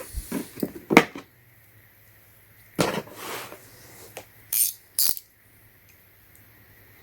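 Steel combination wrenches clinking and clicking against a plastic hard case as they are handled and pressed into its holder clips: a few light knocks, a sharper click about a second in, a short scrape, then two bright metallic clinks.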